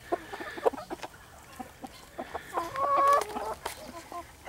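Chickens clucking: short, scattered clucks, with a longer pitched call about two and a half seconds in.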